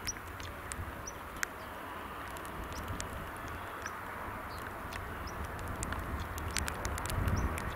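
Birds chirping over a steady outdoor hiss and low rumble, which builds slowly as a pair of Panavia Tornado jets on low approach draw nearer.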